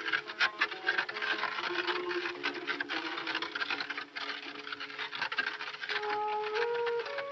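Wooden bullock cart rolling along a dirt track, its wheels and frame rattling and clicking continuously, over sustained notes of film-score music that move to higher notes near the end.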